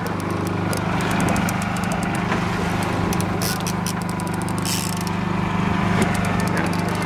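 Boat motor running steadily with a low hum, under rapid light ticking and a few short hissy bursts.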